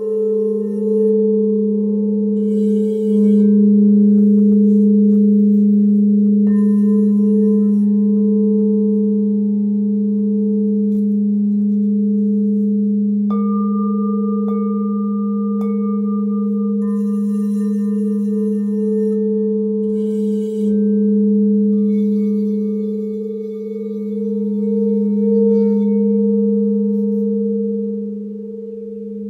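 Crystal Tones alchemy quartz crystal singing bowls ringing together in long, steady tones, one low and one higher. About 13 seconds in, a bowl is struck and a new, slightly higher tone with a bright overtone joins them.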